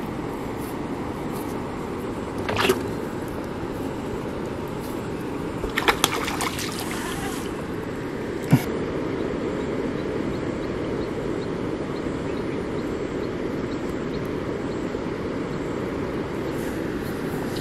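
Steady wind-and-water noise at the water's edge. A brief splash comes about two and a half seconds in, then a burst of splashing around six seconds in as a hooked fish thrashes at the surface before it is lifted out. A single sharp knock follows a couple of seconds later.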